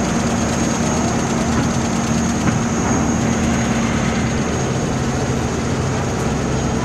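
Car ferry Loch Shira's engines running steadily: a constant drone with a thin high whine over it, and a steady rush of noise across the open deck.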